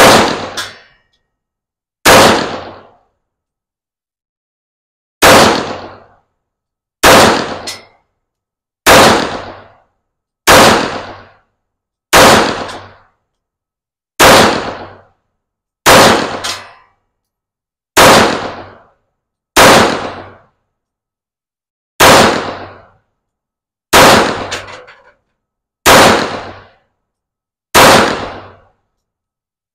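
Smith & Wesson M&P 5.7 pistol firing 5.7x28mm FMJ rounds in slow, aimed fire: fifteen single shots, about one every two seconds, each sharp crack trailing off quickly.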